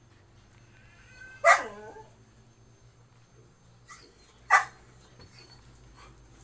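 A dog barks twice, about three seconds apart; the first bark trails off with a falling pitch.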